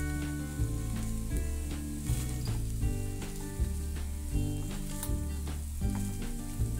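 Flattened rice (poha) being stirred and turned with a silicone spatula in a frying pan, with light sizzling from the oil. Background music with a steady beat plays throughout.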